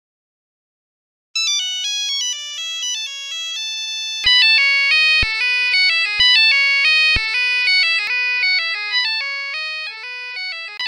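Synthesized ringtone-style melody of quick, high, stepped notes, starting about a second in. Four low thumps about a second apart join it near the middle.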